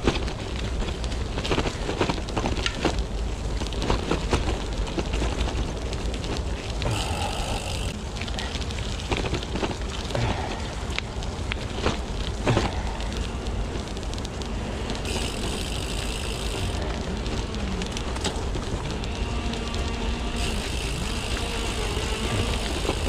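Merida Silex gravel bike riding over a gravel track: tyres crunching on loose stones with constant small rattles and clicks, and wind buffeting the microphone.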